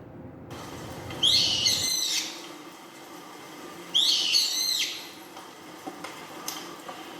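Brown-eared bulbul giving two high-pitched calls, each about a second long, about three seconds apart.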